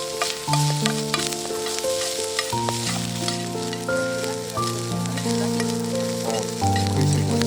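Food sizzling and crackling as it fries, with many small pops, under background music of slow held chords that change every second or two.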